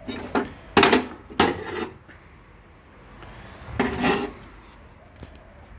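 Old hand tools being handled and rummaged in a case, making a few short scrapes and knocks: a cluster in the first two seconds and another just before four seconds.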